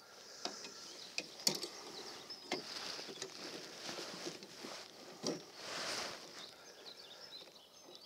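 Faint outdoor ambience at the water's edge, with faint bird calls and a few sharp small clicks.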